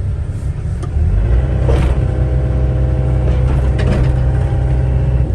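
John Deere 85G crawler excavator's diesel engine running under hydraulic work as the dozer blade is operated. About a second in it steps up in level and holds steady.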